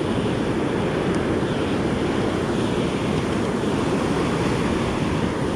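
Steady rush of breaking surf and foamy wash, with wind on the microphone.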